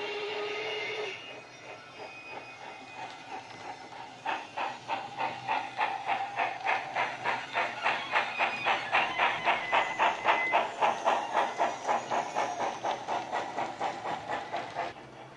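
Wheeltappers DCC sound decoder in a Hornby OO-gauge 'Princess Elizabeth' model steam locomotive, played through a small megabass speaker. The tail of a whistle ends about a second in. From about four seconds in, steady steam exhaust chuffs come at about four a second and stop abruptly near the end.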